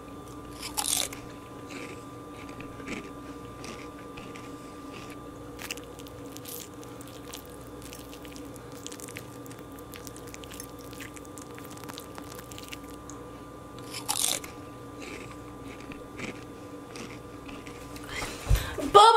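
A person chewing a mouthful of bubble and squeak (fried mashed potato and vegetables with egg), quiet mouth sounds and small clicks over a faint steady hum, with two sharper, louder noises about a second in and again at about 14 seconds.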